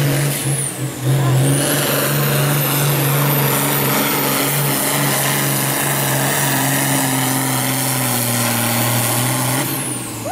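John Deere 4455 pulling tractor's turbocharged diesel engine at full throttle under heavy load as it drags a weight-transfer sled, with a steady engine drone and a high turbo whistle that rises about a second and a half in and falls away near the end.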